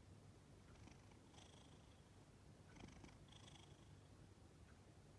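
Faint domestic cat purring steadily: a low continuous rumble with a breathier rasp that swells with each breath, about every two to three seconds.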